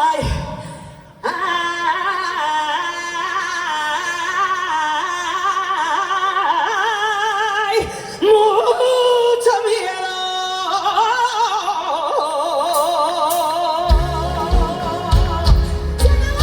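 Live Latin American band music recorded as room sound, led by a high melody line with heavy vibrato. A low bass and drum beat comes in near the end.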